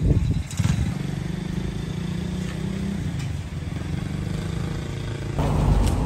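A motor vehicle engine running steadily at a low, even pitch. About five seconds in it gives way to rough wind noise on the microphone.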